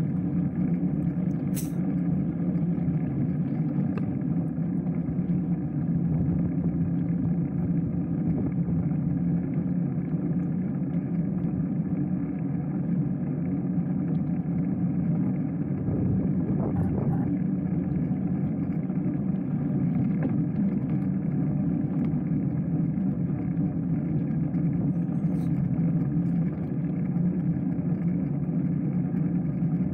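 Steady, muffled rumble of a bicycle rolling over block paving and tarmac, picked up by a camera mounted on the bike.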